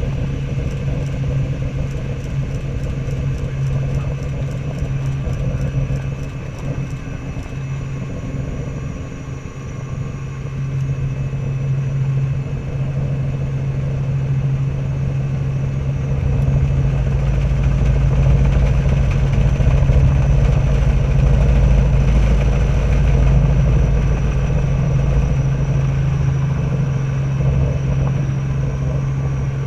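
Robinson R44 helicopter running, a steady loud drone of engine and rotors with a constant low hum; a heavier low rumble swells up about halfway through.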